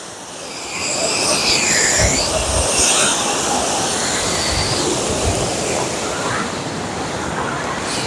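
Steady rush of a waterfall in full monsoon flow crashing into its plunge pool, growing louder about a second in. A few low rumbles of wind buffet the microphone.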